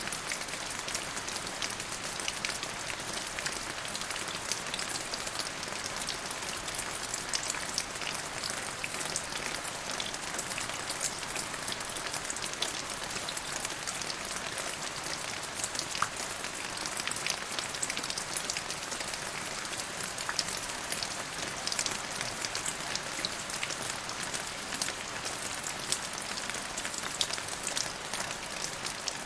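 Steady rain falling, with many separate drops ticking on a surface over an even hiss.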